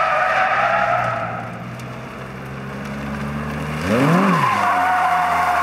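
Toyota MR2 Spyder's 2ZZ four-cylinder engine running under load as the car slides, its tyres squealing in a steady tone that fades away. About four seconds in, the engine revs up and back down and the tyres squeal again.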